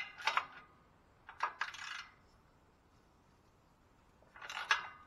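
Metal clinking and rattling from a socket wrench working the bolts of a catalytic converter heat shield, in three short bursts: at the start, around a second and a half in, and near the end.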